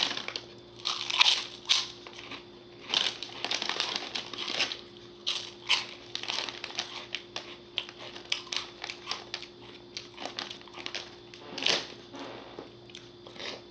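A plastic snack bag, likely the pork rind bag, crinkling and rustling as it is handled, in irregular crackles.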